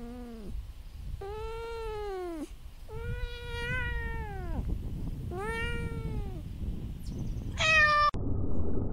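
Domestic cat meowing: a falling meow tailing off, then three long drawn-out meows that rise and fall in pitch, and a short, higher meow near the end, over a low background rumble.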